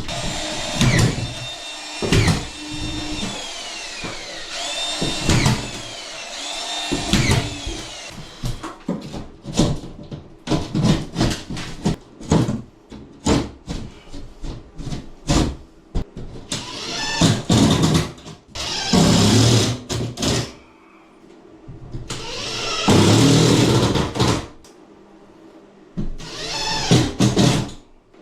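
Power drill running in short bursts, its whine rising and falling as the trigger is worked, with knocks and clatter in between.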